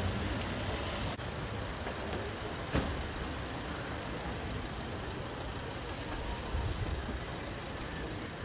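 Street ambience: a steady rumble of traffic and vehicle engines, with one sharp knock about three seconds in.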